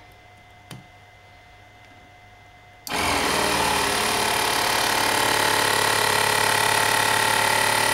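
12-volt car air pump, shut inside a plastic storage box to muffle it, switches on about three seconds in and runs steadily, pumping air into a pneumatic pen gun's chamber through its Schrader valve.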